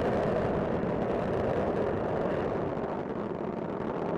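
Space Shuttle Discovery's solid rocket boosters and main engines during ascent, a steady rushing rumble.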